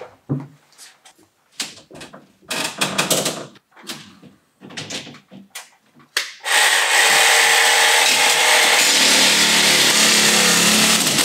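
A few knocks and clicks of handling, then about six and a half seconds in a power tool starts suddenly and runs loud and steady, cutting through a ceiling track-light rail.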